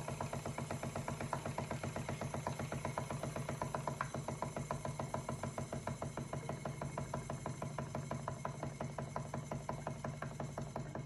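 Stuart S50 model steam engine running steadily on live steam from its HB2 boiler, its exhaust beats and moving parts ticking in a rapid, even rhythm over a steady low hum.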